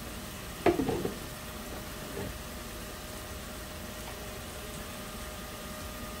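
Onions and ground spices frying in oil in a wok, a steady sizzle, with a sharp click and a brief louder rattle about a second in.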